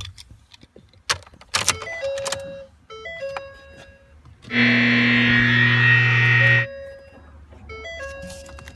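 Ford F-250 cab sounds as the ignition is switched on: a few clicks, then a series of short electronic chime tones at several pitches, then a loud steady pitched hum lasting about two seconds, about halfway through.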